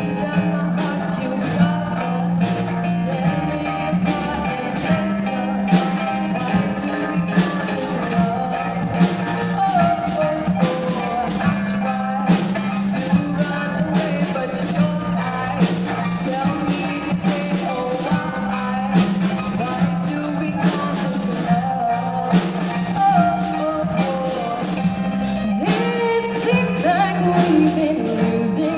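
Rock band playing live, with a singing voice over guitar, a steady low bass note and drums hitting a regular beat.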